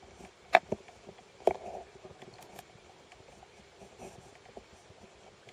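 A few sharp clicks and knocks, the loudest three within the first two seconds, then fainter scattered ticks over a low steady hiss.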